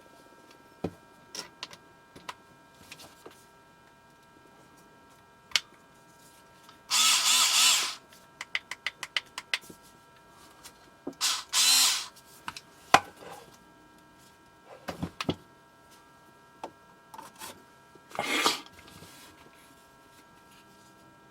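A small 3.6 V cordless screwdriver's motor running in short bursts of about a second, three or four times, with a quick run of clicks between the first bursts and a few scattered single clicks.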